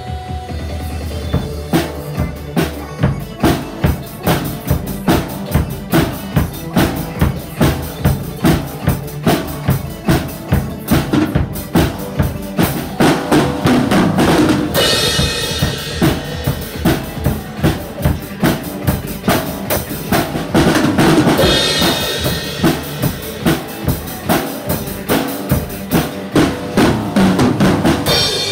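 Acoustic drum kit played in a steady rock beat, bass drum and snare hits about two a second, with stretches of crash-cymbal wash about halfway through and again later.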